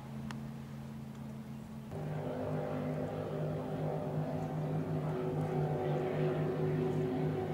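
Motorboat engines droning at a steady pitch. About two seconds in, the drone changes to a different, somewhat louder pitch and then slowly grows louder.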